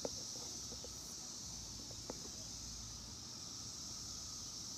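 Chorus of periodical cicadas (Brood X), a steady high-pitched drone with no breaks. A couple of faint taps, one near the start and one about two seconds in.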